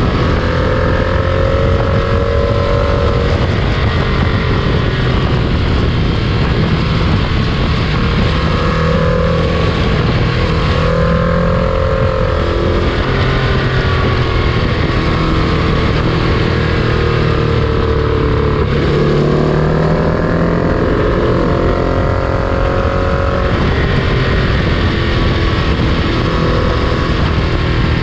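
Freight train in motion: a steady, loud rolling rumble with droning tones that waver slowly in pitch, and wind noise on the microphone.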